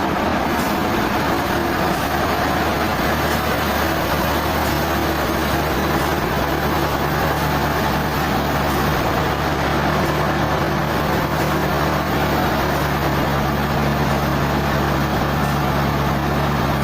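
Sawmill machinery running steadily: a low engine hum under a dense, even noise that stays constant throughout.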